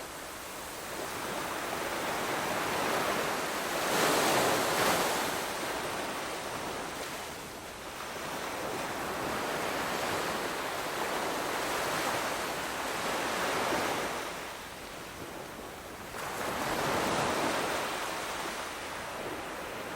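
Ocean surf: waves rushing in and washing back, a steady hiss that swells and ebbs about three times.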